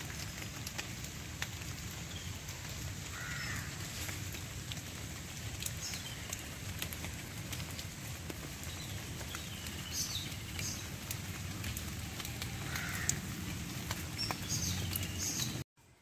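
Steady rain falling on wet leaves, with many small drips ticking and birds calling several times. The sound cuts off abruptly near the end.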